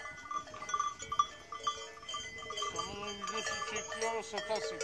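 Livestock bells ringing steadily around a grazing herd, with faint animal calls about three seconds in.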